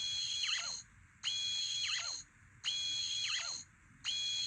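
Deluxe Fifteenth Doctor sonic screwdriver toy playing its hidden-mode Master's laser screwdriver sound effect on a loop. Each burst is a high electronic tone about a second long ending in a falling swoop, repeating about every second and a half, four times.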